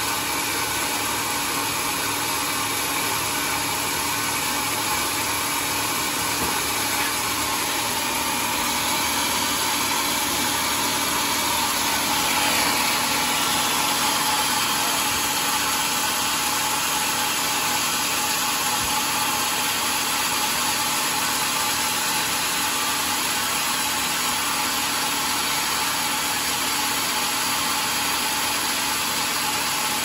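Homemade band sawmill running steadily, its blade sawing lengthwise through a large mahogany log on the carriage. The sound swells slightly about twelve seconds in.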